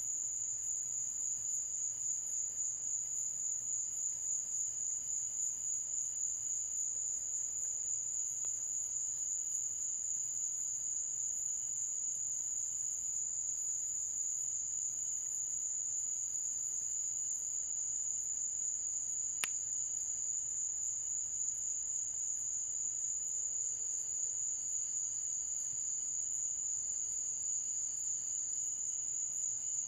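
Night insect chorus: a steady, shrill trill, with a fainter, higher call pulsing about once a second above it. A single sharp click about two-thirds of the way through.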